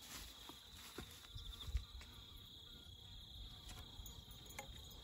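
Crickets chirping steadily in a high, even chorus, with a soft low thump a little under two seconds in.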